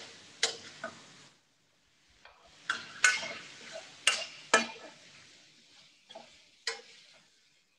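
A metal spoon knocking and scraping against a cooking pot as prawns are stirred into a chicken curry, about seven sharp knocks spread through the stretch with a short rustling hiss after each.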